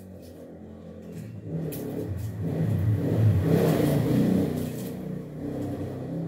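Engine of a passing motor vehicle, a low rumble that swells to its loudest about three and a half seconds in and then fades away.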